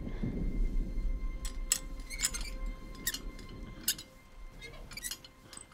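Small metal parts of a toy construction-set ferris wheel clinking as they are handled and fitted together: a string of light, irregular clicks over a low rumble.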